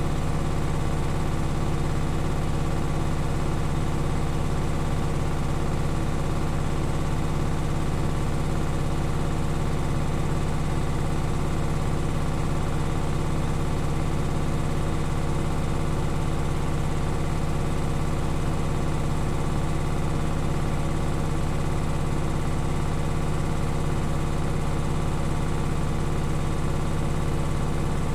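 Beko washing machine in its spin cycle, a steady machine hum with a fast ticking running through it. The ticking is a newer fault that levelling the legs and fitting vibration dampers have not cured.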